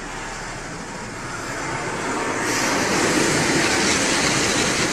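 Automatic car wash running: a steady rushing of water spray and machinery that grows louder, with a sharper hiss setting in about halfway through.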